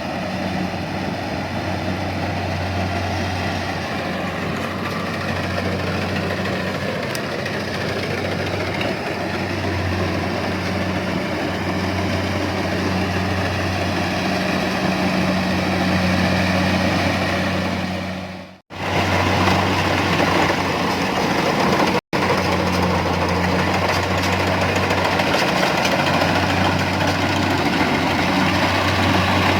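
Engine of a harvesting machine running steadily at constant speed, a low drone. About two thirds of the way through the sound dips away and cuts back in, and a few seconds later it drops out for an instant.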